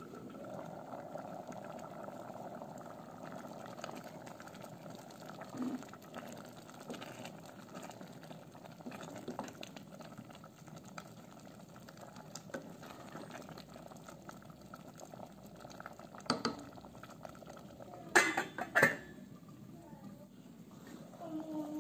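Pot of fava bean and split pea soup bubbling at a boil while it is stirred with a wooden spoon. There are a few sharp knocks against the steel pot near the end.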